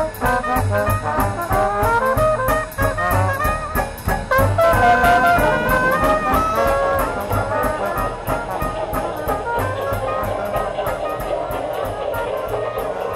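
Upbeat jazzy music led by brass instruments such as trumpet and trombone, over a steady ticking beat.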